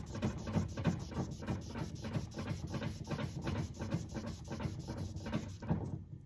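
2000-grit wet sandpaper on a foam block rubbed by hand back and forth across a brass putter face: quick, even scraping strokes that stop shortly before the end.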